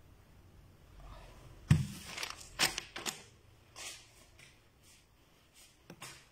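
Paper banknotes being gathered up off a table: a thump about two seconds in, then a run of short rustles and knocks.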